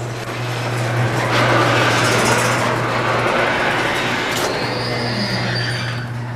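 Electric garage door opener running as the door goes up, a steady mechanical hum with chain-drive rattle that cuts off abruptly as the motor stops at the end of travel.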